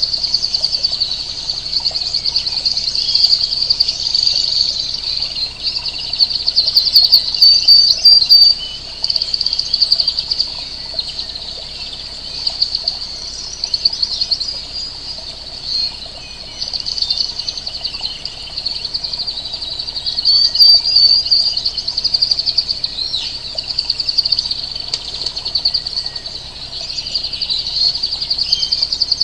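Birds chirping and calling over a steady, high, rapidly pulsing insect trill, a continuous outdoor nature chorus.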